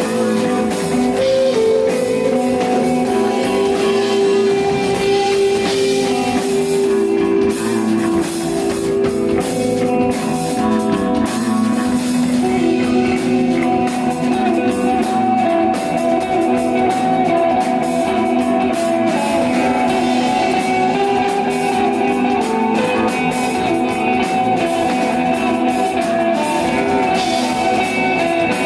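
A rock band playing live: electric guitars holding long melodic notes over a drum kit with steady cymbal hits.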